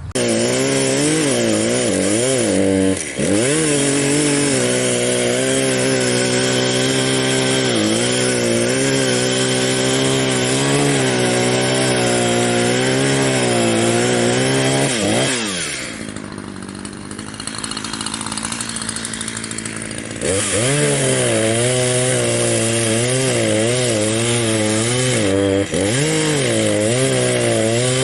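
Barreto stump grinder's gas engine running under heavy load as its cutter wheel grinds into a stump, the engine pitch wavering up and down as the cut bites. About fifteen seconds in the engine drops off and runs quieter for several seconds, then picks back up about twenty seconds in.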